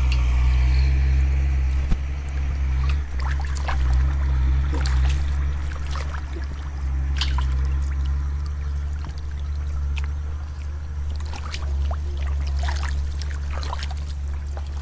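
Water trickling and splashing in shallow water, with scattered small splashes and clicks, over a steady low hum.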